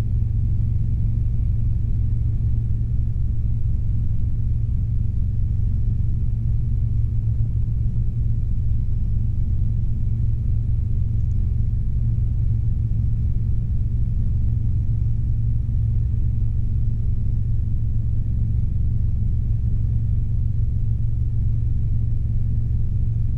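Robinson R22 helicopter in flight, heard from the cabin: a steady, loud low drone of the engine and rotors that does not change.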